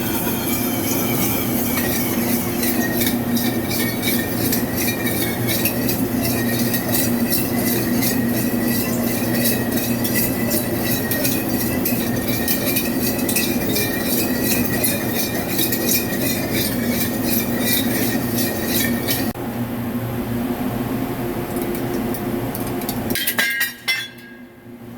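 Vertical CNC lathe cutting an aluminium 6061 part: a steady machining tone and hum with a fast, regular clicking. About three-quarters of the way through the clicking and tone stop, and the sound drops away briefly near the end.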